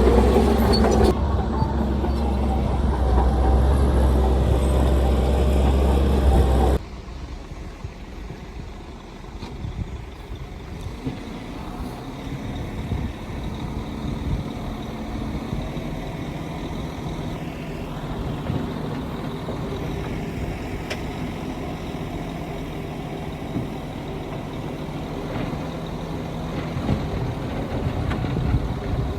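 Heavy diesel engines of earthmoving machinery running: loud at first, then dropping suddenly about seven seconds in to a quieter, steady engine sound.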